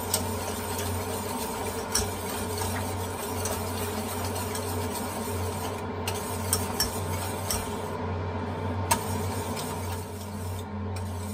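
Wire whisk stirring a thick, thickening acorn-flour and juice mixture in a stainless steel saucepan, with scattered clicks of the whisk against the pan, kept moving so it won't stick to the bottom. A steady low hum runs underneath.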